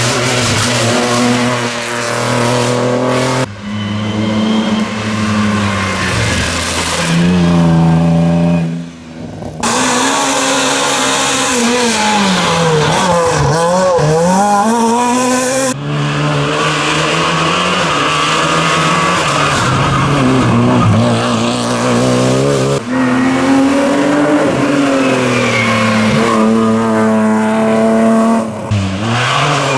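Rally cars driven hard one after another, engines revving up and dropping through gear changes, with one car's pitch sweeping down as it passes. The sound breaks off abruptly several times as one car gives way to the next.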